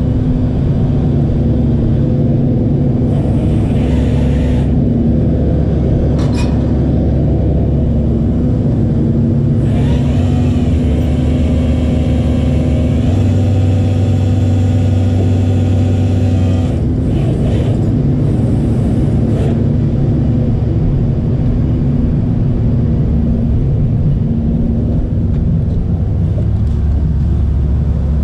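Tow truck's engine running, a steady low rumble; about ten seconds in a stronger, steadier hum with a higher whine joins it for around seven seconds, then drops away.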